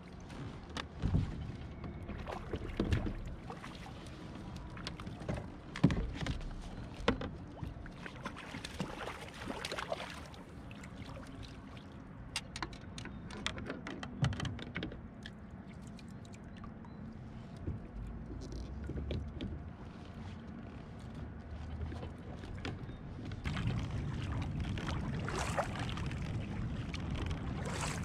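Water splashing and plastic and metal fishing gear knocking against a sit-on fishing kayak as a hooked fish is played and scooped into a landing net, with many short knocks through the first half. For the last few seconds there is a louder steady rush of water as the kayak is paddled.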